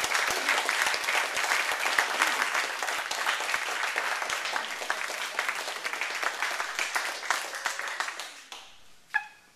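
Audience applauding, fading out about eight and a half seconds in, with one short sharp sound near the end.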